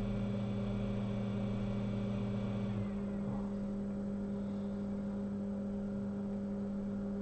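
Steady electrical hum from bench equipment, with a lower tone that stops about three seconds in.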